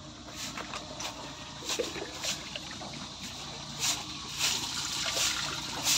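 Broom bristles sweeping a wet concrete floor in short repeated strokes, about one every half second to second, growing louder near the end.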